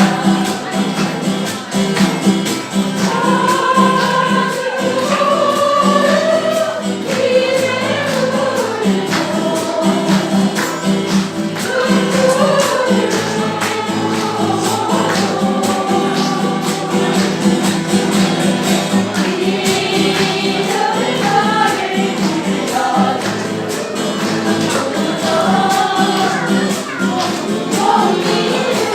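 A group singing a song together with band accompaniment and a steady beat.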